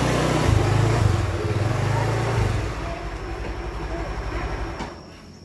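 A motor vehicle's engine rumbles close by, loud for the first two seconds or so and then fading away as it passes.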